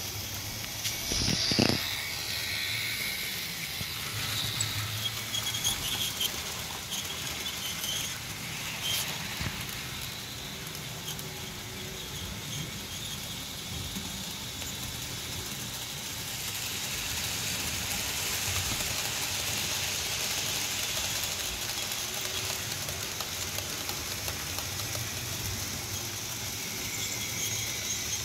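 Model diesel locomotives running laps on the layout track, giving a steady whirring hiss of small electric motors and wheels on rails. A few handling knocks come about one to two seconds in.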